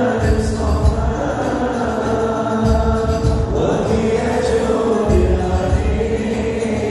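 Live Arabic qasidah sung through a PA: a voice holding long, drawn-out notes over amplified backing music with a deep, steady beat.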